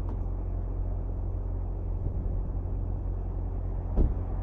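Porsche Macan's twin-turbo V6 idling with a steady low rumble. About four seconds in, the car's door shuts with a thump.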